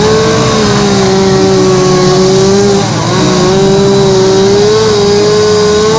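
Two-stroke chainsaw running at high revs while carving wood, a loud steady engine note that eases off briefly about halfway through and then climbs back up.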